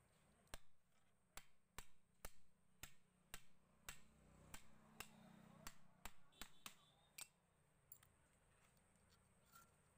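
Sharp metal taps on the cast end cover of a small domestic water pump motor as it is fitted back together, about two a second for some seven seconds, then they stop.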